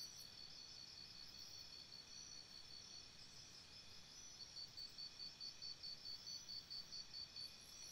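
Faint insect chirping in the forest: a high, pulsing note repeated about four times a second over a soft, steady hiss.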